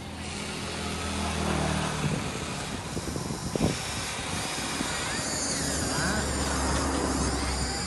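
Huina radio-controlled excavator's electric drive whirring as it swings its boom and digs its bucket into loose dirt, with one sharp knock about three and a half seconds in.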